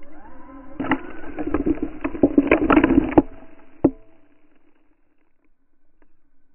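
Brushless motor of an RC truck on paddle tires whining up in pitch as it launches, then a dense spray of sand and grit pelting the camera for about two and a half seconds. A final single knock of debris comes near four seconds in.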